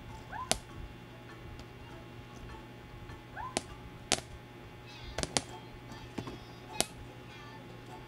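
Plastic toy ball tapping against a refrigerator door: about six sharp taps at irregular intervals, two of them close together a little past the middle.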